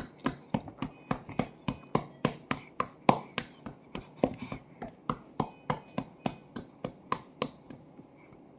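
A hand patting a baby's back to burp it after feeding, in quick, even pats about three a second, with a short pause near the end.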